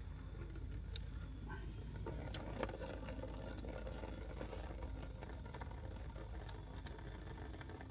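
Diesel and water trickling out of a tractor's fuel water separator drain into a plastic tub, with a few light clicks. The separator is being drained of water that has built up in its bowl.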